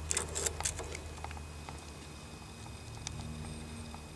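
A quick run of light clicks and rustles in the first second, then a few faint scattered ticks, over a steady low hum.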